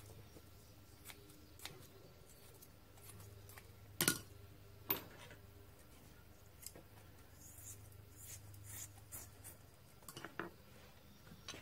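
Scissors snipping and clicking, with two louder snips about four and five seconds in and a few lighter ones, then soft rustling of fiberglass cloth being handled, over a faint low hum.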